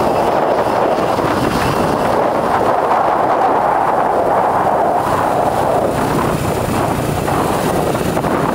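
Steady wind rushing over the microphone of a camera on a moving motorcycle, with the bike's engine and tyre noise blended in underneath.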